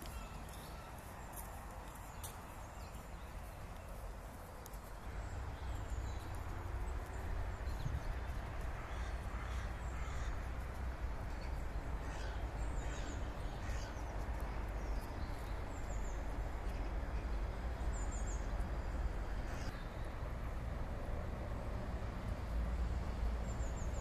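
Outdoor park ambience: birds calling in short, high, falling chirps, repeated on and off, over a steady low rumble that gets louder about five seconds in.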